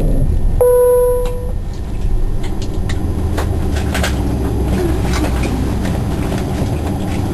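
Steady low rumble inside the cabin of a Saab 340 turboprop airliner. About half a second in, a single steady tone sounds for about a second, with a few faint clicks scattered through.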